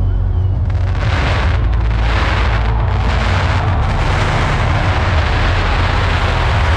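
Ground pyrotechnics, spark fountains and flame jets, hissing loudly from about a second in, over a steady low rumble.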